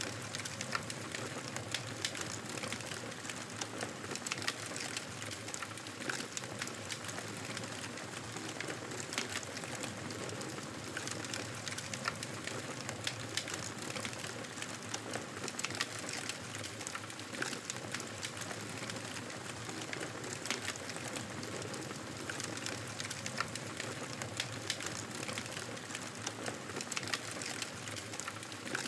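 Fire burning steadily, a constant hiss with frequent small crackles and pops scattered throughout.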